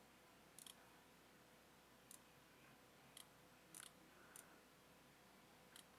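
Near silence with a handful of faint, short clicks spaced irregularly, about six in all.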